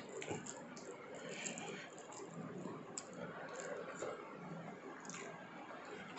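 A hand mixing and kneading cooked rice with curry on a stainless steel plate: faint soft wet sounds of the rice being pressed, with a few light ticks of fingers against the plate.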